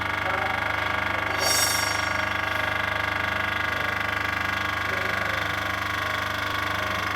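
Concrete paving-block machine running steadily, its motor and vibrator giving a constant mechanical hum. A brief high-pitched noise about one and a half seconds in.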